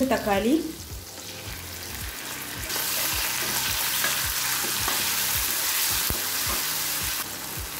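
Tomato and shallots sizzling in hot oil and ghee in a steel pan, stirred with a wooden spatula that knocks and scrapes against the pan. The sizzle gets louder about three seconds in and drops back near the end.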